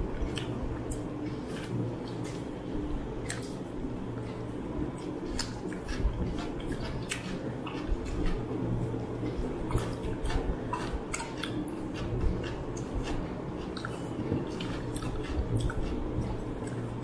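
Eating by hand: irregular wet smacks and clicks of chewing and of fingers mixing rice and mutton curry on plates, over a steady low hum.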